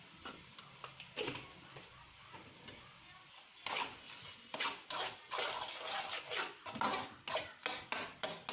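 A spoon scraping and clattering against a cooking pan as the masala powders are stirred in: a few light clicks at first, then a quick, irregular run of scrapes and knocks from about halfway through.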